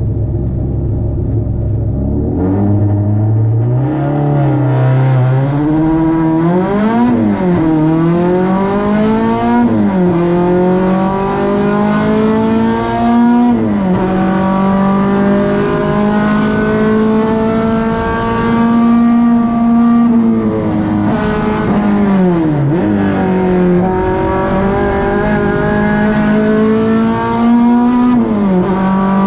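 Renault Clio 2 RS race car's 2.0-litre four-cylinder engine heard from inside the cabin: a steady low idle, then about two seconds in it pulls away under full throttle. It accelerates hard through the gears, its pitch climbing and dropping at each gear change and holding high for a stretch in the middle.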